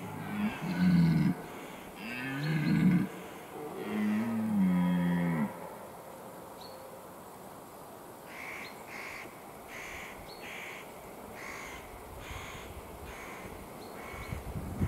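Red deer stag roaring in the rut: three deep, groaning roars in the first few seconds, the last one the longest and dropping in pitch as it ends.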